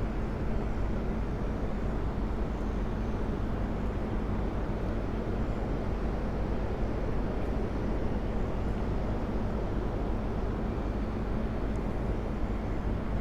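Steady rushing roar of water pouring through the Illinois River dam's spillway, an even unbroken noise, with a faint low steady hum underneath.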